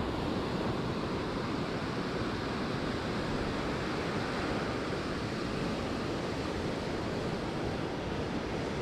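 Ocean surf breaking and washing up the beach, a steady rush, with wind on the microphone.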